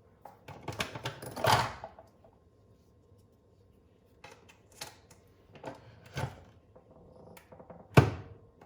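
Clicks and knocks of kitchen items being handled: a quick run of small clatter, scattered clicks, then one sharp knock near the end.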